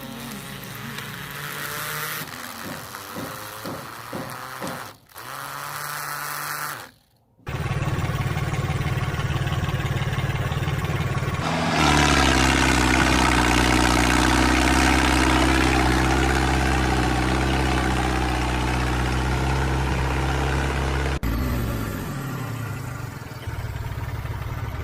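Small motor of a homemade mini thresher running with a steady whirring hum. It speeds up to a higher steady pitch about halfway through, then winds down near the end, the pitch falling away.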